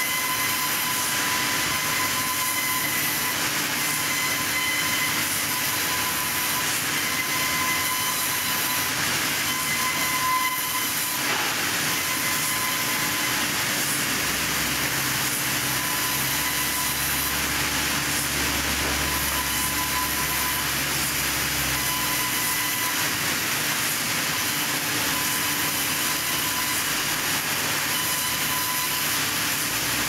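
Multi-blade rip saw in a sawmill running as wood slabs are fed through it: a steady, dense hissing machine noise with a whine that comes and goes. A deeper hum joins for several seconds past the middle.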